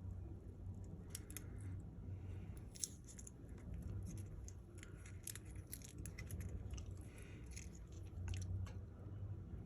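Small hand tools clicking and scraping on the small parts of an iPhone 15 during a screen replacement: irregular sharp ticks over a low, steady hum.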